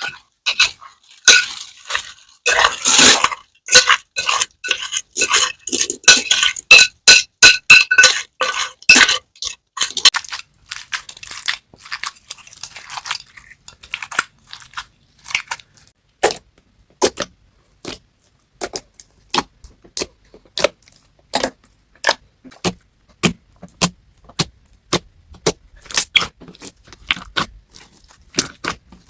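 Slime being squeezed and worked by hand, making sharp clicking and popping sounds. A dense run of crackles for about the first ten seconds, then separate pops every half second or so.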